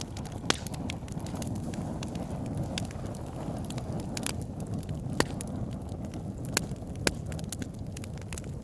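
Wood campfire burning with a steady low rustle of flames, broken by sharp crackling pops from the burning wood, the loudest about half a second in and three more in the second half.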